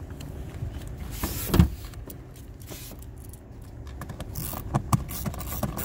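Handling noise from fitting a car's HVAC blower motor up under the dashboard and starting its bolts by hand: one solid thump about a second and a half in, then a run of small clicks and knocks near the end.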